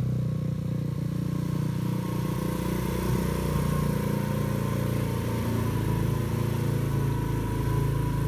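125cc four-stroke pit bike engine idling steadily with no revving. It runs evenly and smoothly, an engine in good mechanical order.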